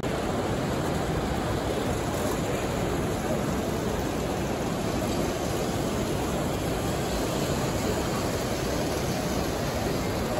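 Steady background noise of a large, crowded exhibition hall: an even wash of distant crowd murmur and hall ambience with no distinct voices or events.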